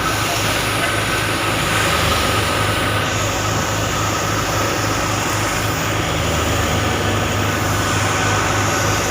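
Farm machinery engine running steadily under even load, with a constant low hum and a broad hiss over it.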